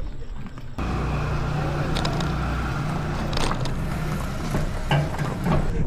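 A motor vehicle engine running at a steady speed, starting abruptly about a second in, with a few scattered knocks.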